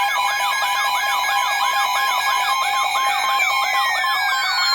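Several emergency alert tones sounding on top of each other: steady alert tones under a fast warbling tone that rises and falls about four times a second. About three and a half seconds in, a falling tone joins them.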